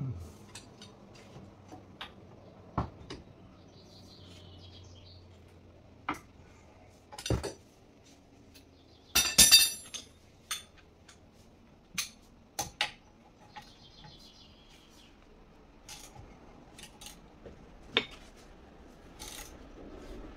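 Hand tools clinking and clanking against metal: scattered sharp knocks, with a louder run of clanks about nine seconds in.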